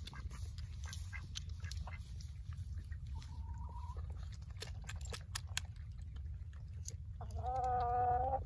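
Backyard chickens and ducks at a water pan, with scattered sharp clicks from beaks pecking and dabbling. A short note comes a little past three seconds in. Near the end, one bird gives a loud, long call held on one pitch.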